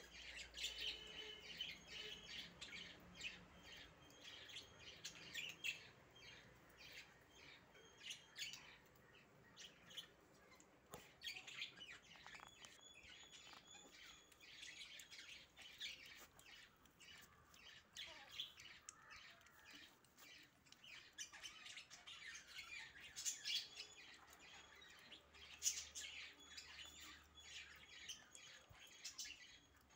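Pomeranian puppies eating from a shared food bowl: faint, quick lapping and chewing clicks mixed with high, thin chirping squeaks.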